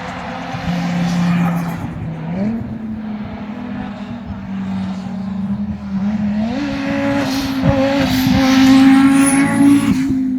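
Audi five-cylinder engine running at held revs. Its note steps up twice, about two seconds in and again past six seconds, then eases down near the end.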